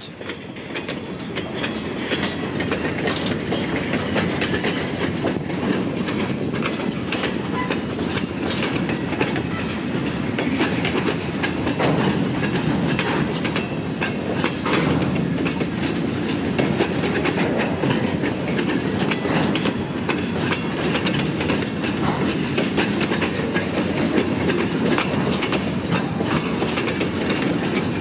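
Escanaba & Lake Superior freight train's empty bulkhead log flatcars rolling past: a steady rumble of steel wheels on rail with irregular clicks and clanks over the joints.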